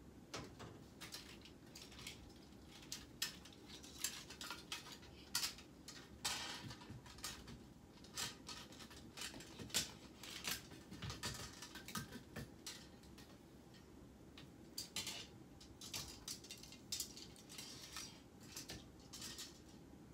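Clothes hangers clicking and clinking against each other and the closet rod as hanging clothes are pushed aside and pulled out, in irregular, fairly quiet knocks.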